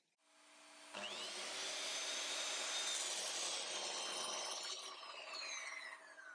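Metabo sliding miter saw's motor starting about a second in with a rising whine, running steadily, then spinning down with a falling whine near the end.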